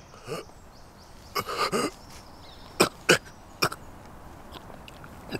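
A man coughing and straining for breath: a short vocal sound at the start, a longer strained one with a wavering pitch about a second and a half in, then three short sharp coughs in quick succession around the middle.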